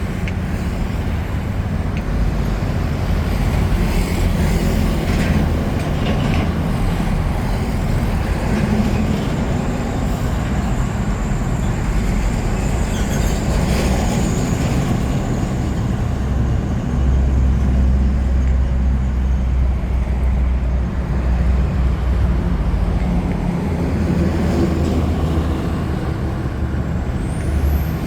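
Steady low rumble of road traffic, with a heavier engine drone for several seconds past the middle.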